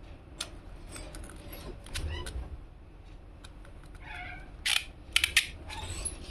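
Sharp clicks and light taps of hands handling a plastic earbud case and its packaging, with a short pitched call like a cat's meow about four seconds in.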